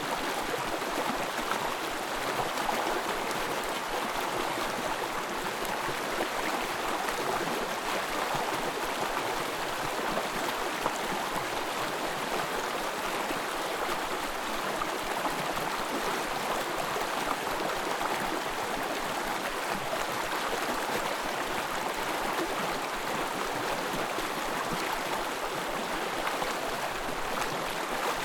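Small forest stream running and gurgling steadily over its bed.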